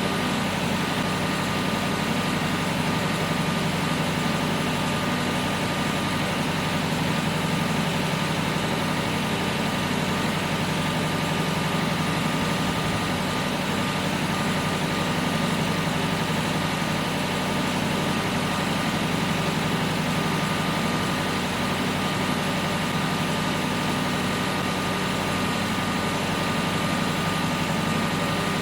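Tractor engine running steadily, an even drone with no change in speed or load.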